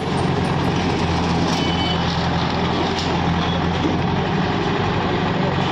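Heavy diesel engine of a demolition bulldozer running steadily, with a few faint short high beeps about one and a half to two seconds in.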